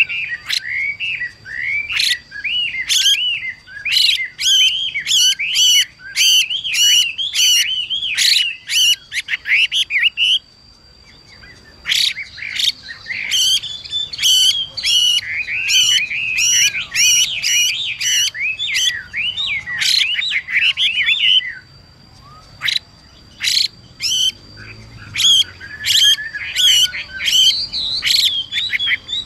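Chinese hwamei vocalising in rapid runs of sharp, harsh notes mixed with quick whistled glides, in three long bouts with short pauses between them.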